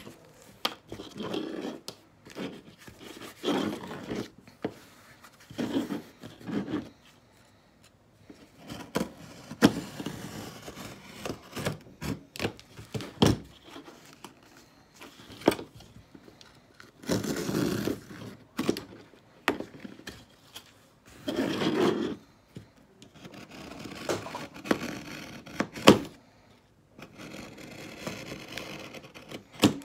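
Staples being pried out of a wooden canvas stretcher frame with a pointed metal tool: scattered sharp clicks and snaps as staples pop free, between short bouts of scraping of metal against wood and canvas.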